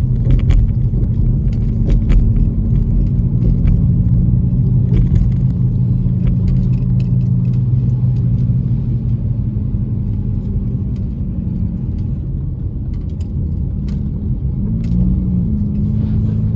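Car driving, heard from inside the cabin: a steady low engine and road hum with a few light clicks and knocks, the engine note shifting in pitch near the end.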